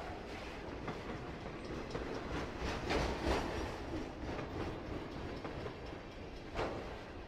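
A train rolling on rails, a steady rumble with the wheels clacking over the rail joints. A few louder knocks come about three seconds in and again near the end.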